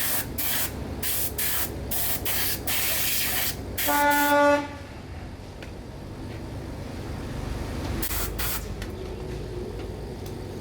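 Repeated short bursts of spray hissing, about two a second, stopping about four and a half seconds in. A brief pitched tone with several overtones sounds just before the spraying stops, followed by a low steady hum.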